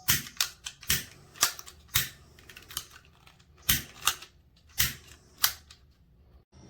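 About a dozen sharp mechanical clicks at uneven intervals, with a low hum between them.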